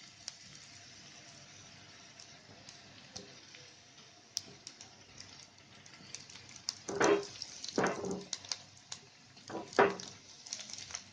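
Shallow oil in a non-stick frying pan sizzling faintly, with small crackles, as rolls of chapati dough are set into it. Several louder bursts come in the second half.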